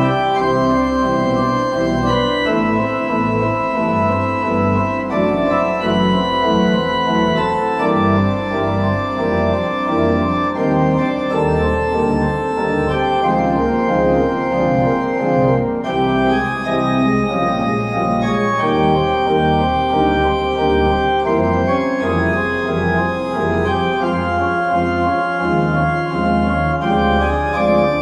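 Pipe organ playing a full, many-voiced passage: sustained chords over deep bass notes, shifting every second or so.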